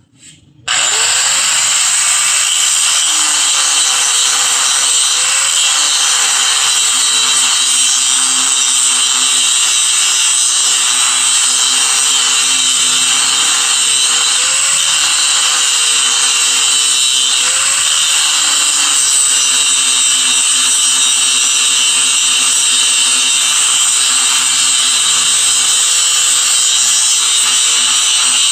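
Angle grinder starting about a second in and grinding steadily, a loud hiss over a steady whine whose pitch dips briefly a few times as it is pressed into the work.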